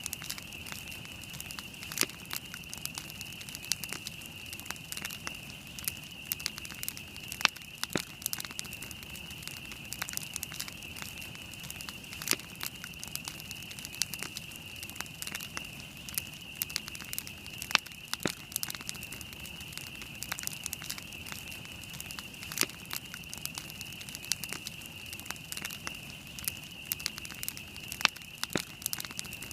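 Wood campfire burning, crackling with irregular sharp pops, a few louder than the rest, over a steady high-pitched hiss.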